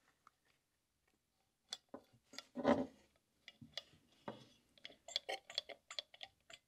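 Hand pump oil can being worked in short strokes, clicking and squirting oil down the spark-plug holes into the cylinders to lubricate pistons and rings before a long-dormant engine is first turned over. There is a louder handling sound about two and a half seconds in and a quick run of clicks in the last second and a half.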